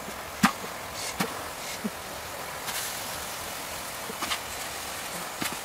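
Several light knocks and taps as bamboo shoots, lemongrass and pieces of fish are set down by hand in a large metal wok, over a steady background hiss.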